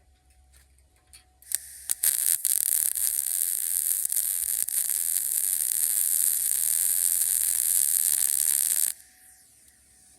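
Harbor Freight Titanium MIG welder arc crackling as a weld bead is run on trailer steel: a brief strike about a second and a half in, then a steady sizzle for about seven seconds that cuts off suddenly when the trigger is released.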